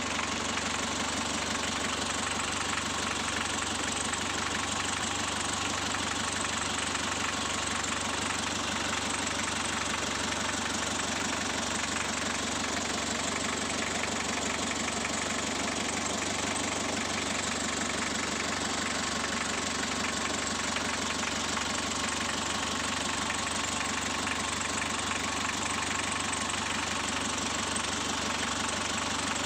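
Mitsubishi L300 diesel engine idling steadily with an even diesel clatter.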